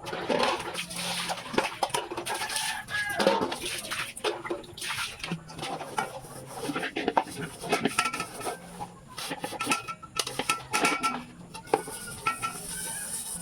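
Irregular clattering knocks, with chickens clucking.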